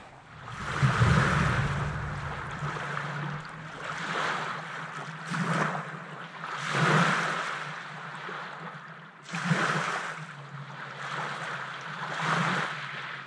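Small lake waves lapping onto a sand-and-pebble beach close to the microphone, each wash swelling and fading every two to three seconds.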